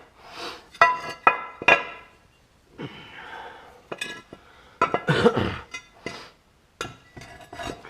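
Metal kit plate and parts clinking and knocking as they are handled. A few sharp strikes ring briefly about a second in.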